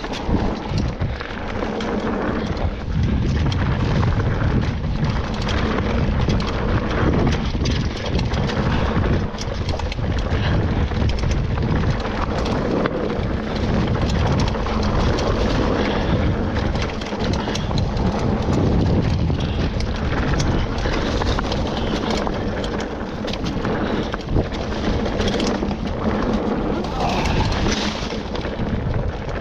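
Trek Stache hardtail mountain bike riding fast down a dirt trail: tyre roar over dirt and roots, a constant clatter of chain and frame over the bumps, and wind rushing over the microphone.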